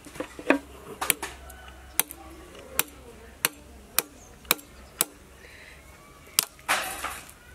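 Knife chopping at the leg joints of a plucked turkey: about nine sharp knocks, spaced roughly half a second to a second apart, then a short rougher burst near the end.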